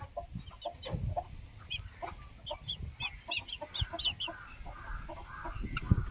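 Aseel chickens clucking in short repeated calls, with a run of quick high chirps from small birds in the middle. A sharp knock near the end is the loudest sound.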